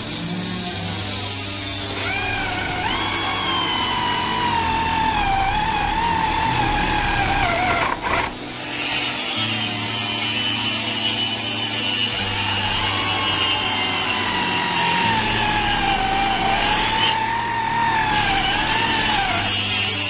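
Electric drill boring holes into a wooden door for a lock, its motor whining with a pitch that sags and wavers as the bit cuts. It stops briefly about eight seconds in, then runs on again.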